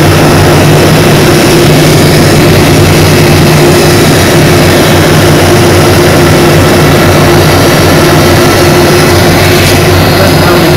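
Boeing 747-400 jet engines running loud and steady, an even rushing noise over a constant low hum.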